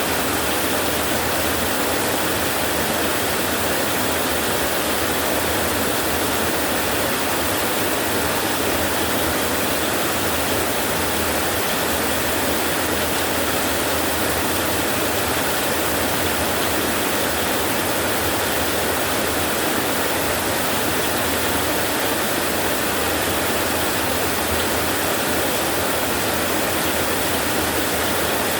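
Heavy rain falling steadily on a metal roof, an unbroken hiss with no separate drops or thunder standing out.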